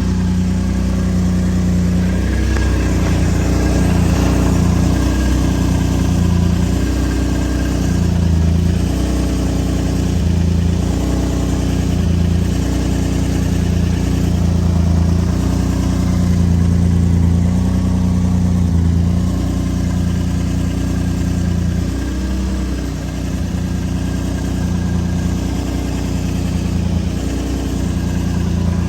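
Vehicle engine running at about idle, steady with small rises and falls in speed. The owner suspects an exhaust leak.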